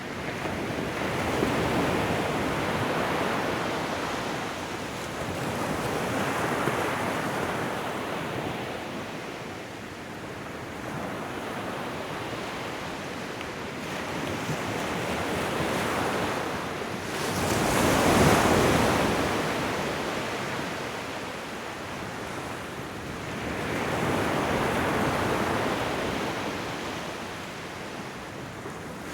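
Ocean waves breaking on a shoreline, the surf swelling and ebbing every few seconds, with one larger wave about eighteen seconds in.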